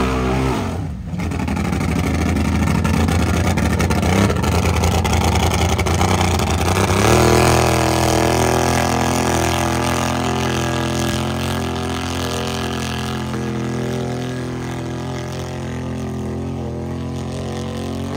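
Mud-racing vehicle's engine held at high revs. It drops away briefly about a second in, then climbs again around seven seconds in and holds steady.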